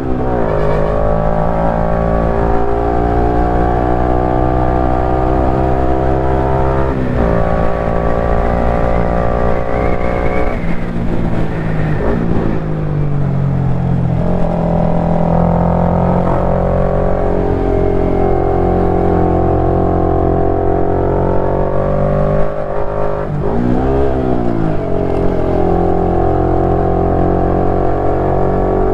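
KTM 390 Duke's single-cylinder engine running under way, its pitch rising and falling with throttle and gear changes, with a quick rev up and back down about three-quarters of the way through.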